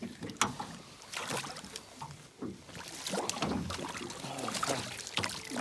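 Water lapping against a small boat's hull, with scattered irregular clicks and knocks of rod and net handling.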